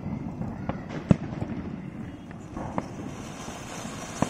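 A Ganga Jamuna ground fountain firecracker with its fuse burning, over scattered sharp cracks and pops, the loudest about a second in. Near the end the fountain catches and starts spraying sparks with a rising hiss.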